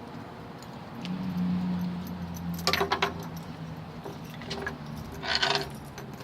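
A bunch of keys jingling in two short bursts, about three seconds in and again near the end, over a low steady hum that swells about a second in.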